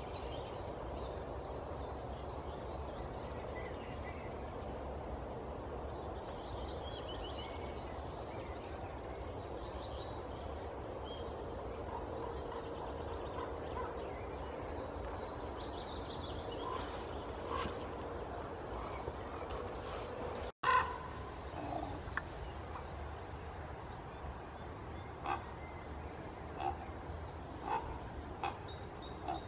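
Common raven calling with short separate calls, several in the last third, over small songbirds singing in the background.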